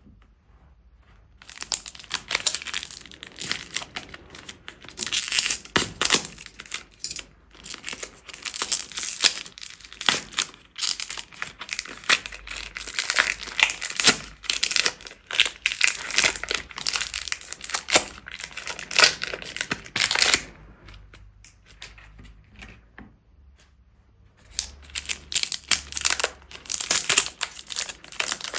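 Plastic bags being crumpled and crinkled by hand, a dense crackling that stops for a few seconds about two-thirds of the way through and then starts again.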